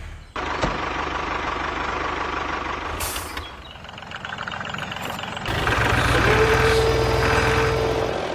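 Heavy diesel engine running, with a short burst of hissing air about three seconds in. The engine gets louder for the last three seconds, with a steady whine over it.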